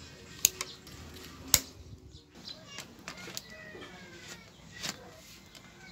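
A handful of sharp, separate plastic clicks and snaps as zip-tie tails are snipped with scissors and the plastic bottle cage and bottle are handled.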